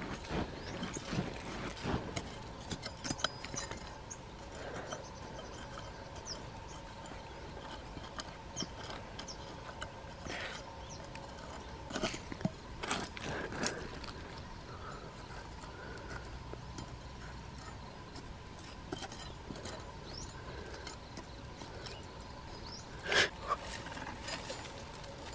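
Hands digging and scraping in soil, with grass stems pulled from the earth: irregular scrapes, crumbles and crackles, a few louder ones in the middle and near the end, over a faint steady hum.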